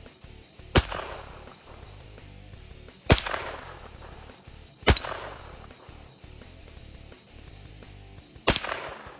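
Heckler & Koch HK416 .22LR semi-automatic pistol firing four single shots at uneven intervals, each crack followed by a short fading echo.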